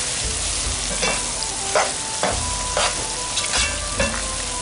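Spiced mutton pieces sizzling in oil in a nonstick pot while a plastic spoon stirs them, scraping across the pan bottom about seven times. This is the bhuna stage, where the meat is dry-fried with its masala.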